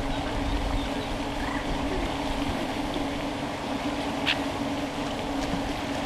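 Steady low rumble with a constant low hum, and one short, higher sound about four seconds in.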